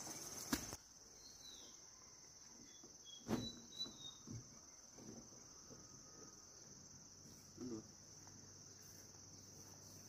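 Insects, crickets or cicadas, chirring in a steady high drone. A few faint knocks and thumps come through it, the clearest about three seconds in.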